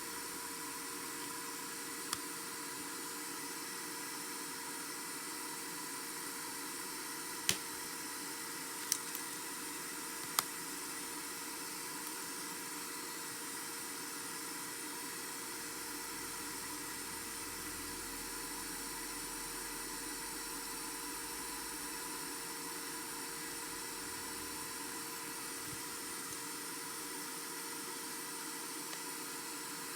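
Steady electronic hiss with faint constant tones running under it, broken by four short, sharp clicks in the first third.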